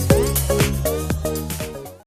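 Background music with a steady beat and bass line, fading down near the end.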